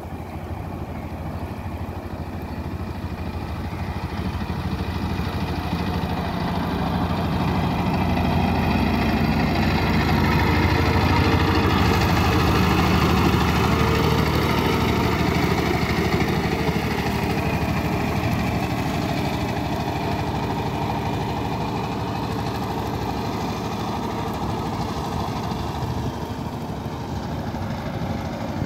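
Engine of a small wooden river motorboat running steadily as it passes close by, growing louder toward the middle and then fading as it moves away over the water.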